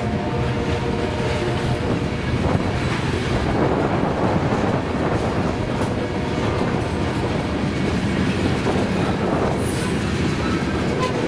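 Loaded covered hopper cars of a freight train rolling past, their steel wheels running on the rail in a steady, loud stream of wheel-and-rail noise.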